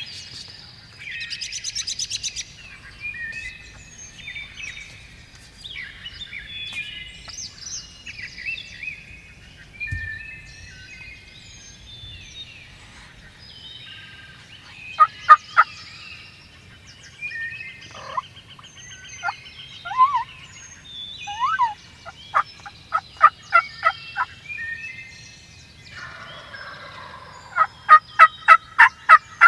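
Wild turkeys calling over a chorus of songbirds: a rattling gobble about a second in, then sharp clucks and yelps from about fifteen seconds on, ending in a run of about seven loud, evenly spaced yelps.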